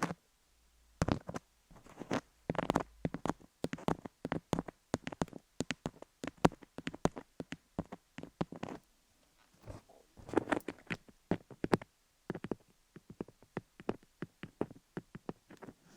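A fluffy down tool brushing and dabbing over a rhinestone-covered binaural dummy-head microphone, giving close, irregular soft taps and scratchy rustles.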